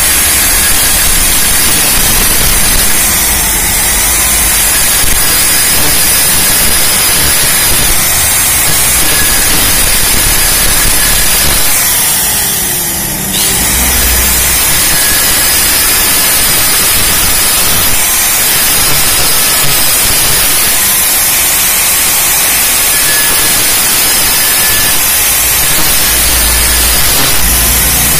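Electric angle grinder with a thin cutting disc running at speed and cutting through a small hand-held metal engine part, a steady loud hiss. It eases off briefly about halfway through.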